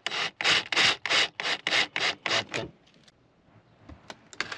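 Cordless drill run in short rhythmic rasping bursts, about four a second, while pre-drilling a screw hole for a roller-shade mount; it stops after nearly three seconds, a few light clicks follow, and the drill starts running again at the very end.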